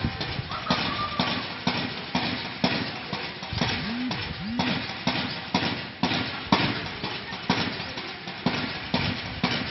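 Steady drill-cadence beat of sharp strikes, about two a second, with two short shouted calls about four seconds in.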